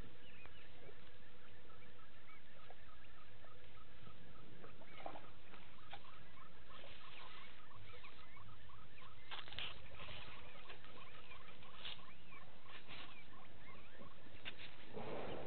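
Bush ambience: rows of short, repeated chirps from small calling creatures over a low steady rumble, with brief rustling noises about ten seconds in and again near the end.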